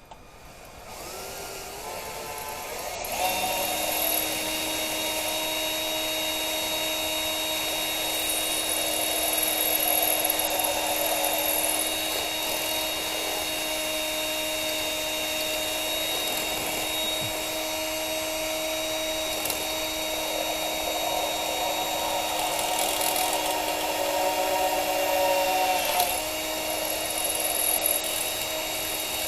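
Power drill spinning up and running steadily, drilling out a broken-off bolt, with a brief dip in speed near the end.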